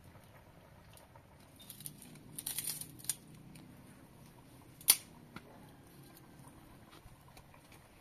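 Dry sticks and brushwood rustling and crackling as they are handled, then one sharp snap of a dry stick breaking, about five seconds in, followed by a few light clicks.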